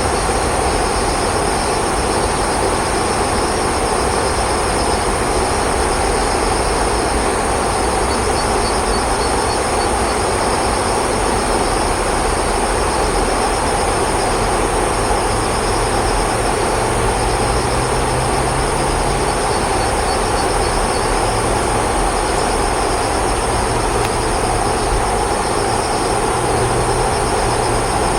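Steady rumble of passing vehicle traffic, with a high buzz pulsing on and off above it and a low hum joining in about halfway through.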